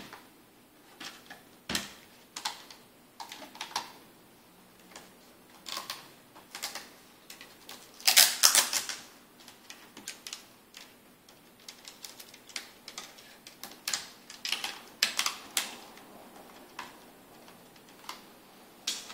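Irregular small sharp clicks and short scrapes of hands unplugging and handling the thin internal cables and connectors of an opened laptop, with a louder scraping rustle lasting about a second, some eight seconds in.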